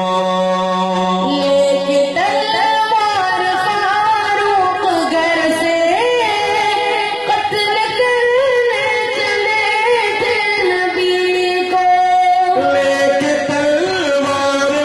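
A man and a boy singing a naat into microphones, with long, held, gliding melodic lines. The boy's higher voice leads through the middle, and the man's lower voice takes the line back near the end.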